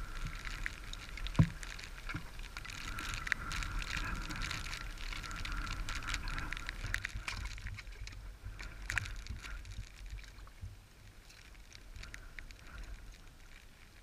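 Footsteps and the swish of waterproof waders over wet rocks, with a sharp knock about a second and a half in and scattered small clicks. Under it is a low rumble of wind on the microphone, and the sounds die down over the last few seconds.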